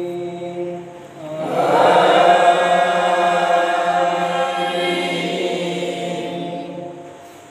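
A young imam's melodious Quran recitation, chanted in long held phrases. One phrase trails off about a second in, and after a short breath a louder, long ornamented phrase rises and fades away near the end.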